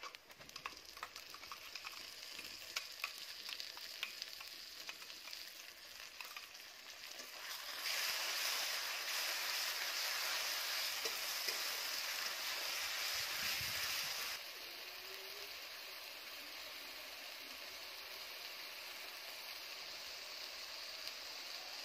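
Browned onions and a freshly added paste sizzling in hot oil in a steel kadai, with a metal spatula scraping and clicking against the pan as they are stirred. The sizzle grows louder for about six seconds in the middle, then drops suddenly to a steadier, quieter sizzle.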